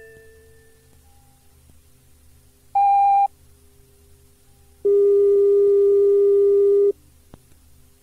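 An electronic chime's last notes fade out over tape hiss. Then come a short beep about three seconds in and a steady lower tone held for about two seconds, both signal tones recorded on an old cassette of Shinkansen on-board announcements.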